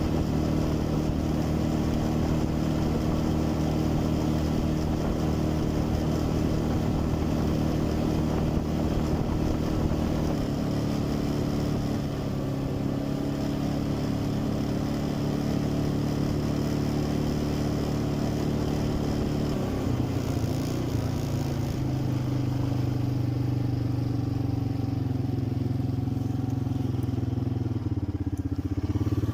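Quad bike (ATV) engine running under way at a steady speed, its pitch stepping down about ten seconds in and again about twenty seconds in.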